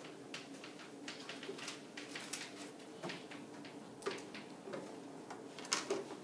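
Chalk writing on a chalkboard: a quiet, irregular run of sharp taps and short scratches as the letters are formed, over a faint steady room hum.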